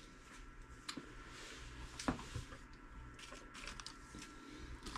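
Faint rustling of a small plastic parts bag being handled, with a few light clicks and taps on the workbench.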